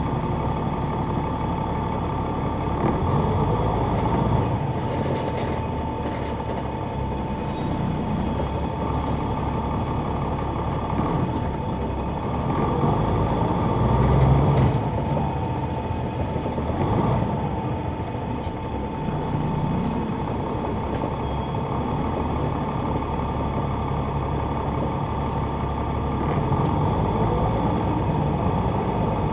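Inside a 2004 Neoplan AN459 articulated transit bus, heard from the rear seats near its Caterpillar C9 ACERT inline-six diesel engine: the engine runs continuously, rising and falling in level, under a steady high whine. There are a few brief high squeaks about 7 and 18 seconds in.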